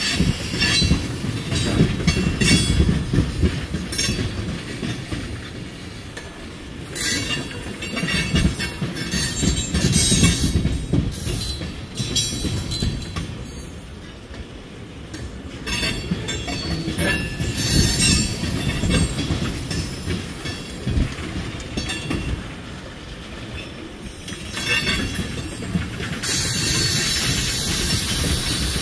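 Freight train tank cars rolling past: a steady low rumble of steel wheels on rail, with repeated clicks as the wheels cross rail joints. A high wheel squeal rises near the end.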